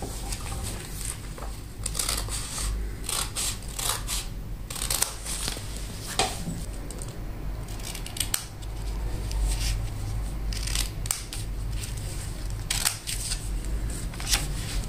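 Small blue-handled scissors snipping through a doubled sheet of A4 paper, a run of repeated short cuts cutting it into strips.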